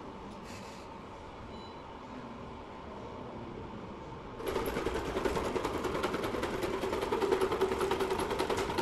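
Small quadruped robot dog's leg servos whirring with a rapid, even clicking as it turns and walks, starting about four and a half seconds in after a quiet stretch.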